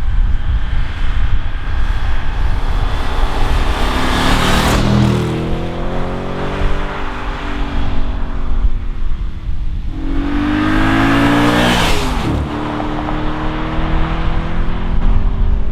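Audi RS4 B7's 4.2-litre V8 on its stock exhaust driving past twice. Each time the engine note swells as the car approaches and its pitch drops as it goes by: once about a third of the way in and again about three quarters of the way in.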